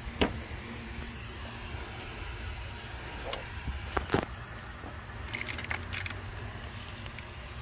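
Hands working on rubber coolant hoses and metal hose clamps under a car's hood: a few sharp clicks and knocks and a brief metallic rattle over a steady low rumble.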